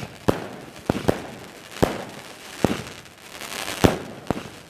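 Fireworks going off: about seven sharp bangs at uneven intervals, the loudest nearly four seconds in, with a crackling hiss between some of them.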